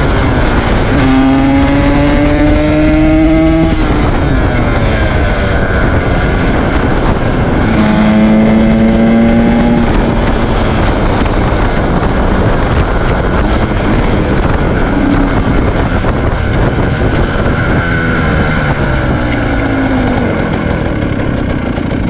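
KTM 125 SX two-stroke single-cylinder engine running hard under the rider, its note rising under acceleration about a second in and again around eight seconds, then falling away near the end as the bike slows.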